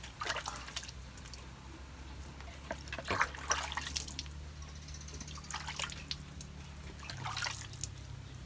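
Water splashing and dripping in several short bursts as hands scoop water from a tub and splash it over a wet dog's coat during a bath.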